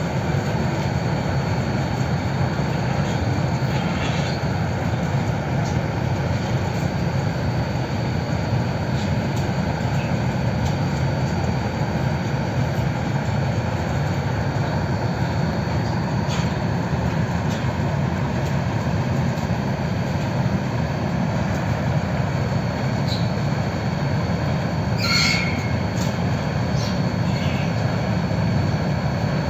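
Biomass pellet furnace running: a steady, even rushing noise of its burner and fan. About 25 seconds in there is a brief high squeak or clink.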